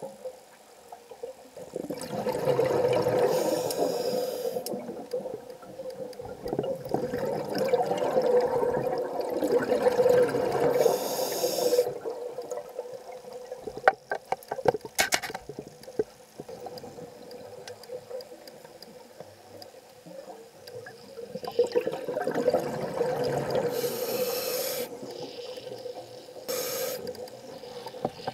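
Scuba diver breathing through a regulator underwater: three long swells of exhaled bubbles, each with a short hiss, over a steady hum. A quick run of clicks comes about halfway through.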